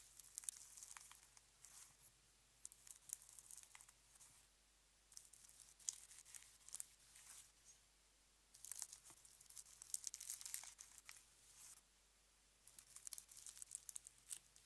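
Slime being squeezed and stretched by hand, giving faint crackling and popping in five bouts of a second or two each, with short pauses between.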